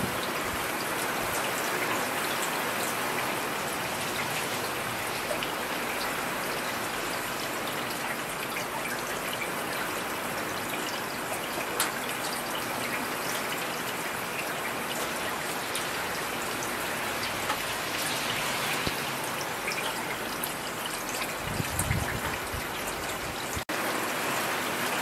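Heavy rain falling steadily, a dense even hiss of drops with scattered sharp drips close by. A short low rumble near the end.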